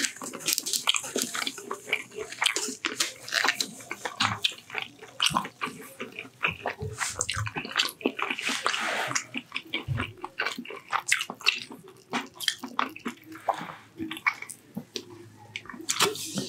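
Close-miked mouth sounds of a man drinking Coca-Cola from a plastic bottle: irregular gulps, swallows and wet clicks.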